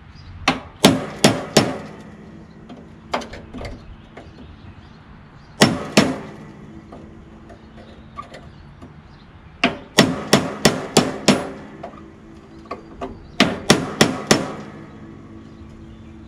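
Hammer blows on metal in quick bursts of several strikes each, with pauses between, each with a short ring. The blows are working at the stuck bolts of a lawn tractor's footwell panel.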